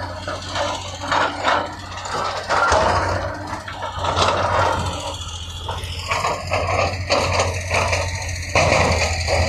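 Heavy earthmoving machine working: a diesel engine running under a steady low drone, with repeated scraping and rattling of dirt and rock.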